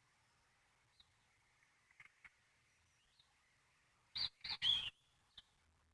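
Faint chirps of small birds, with three short, louder sounds a little past four seconds in.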